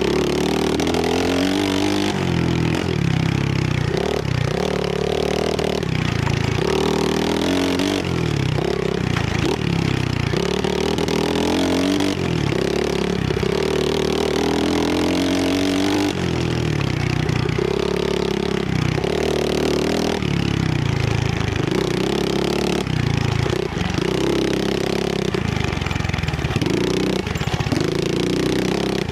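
Trailmaster 125cc pit bike engine revving up and falling back again and again as it is ridden and shifted through the gears, its pitch climbing in repeated runs a few seconds long.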